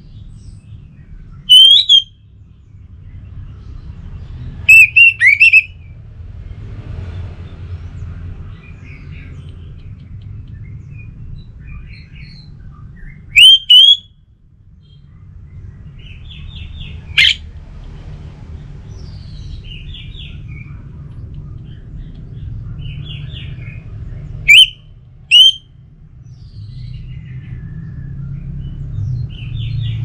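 Orange-headed thrush singing: about six loud, short whistled phrases with quick pitch glides, spaced several seconds apart, with quieter scratchy chattering notes between them, over a low steady background rumble.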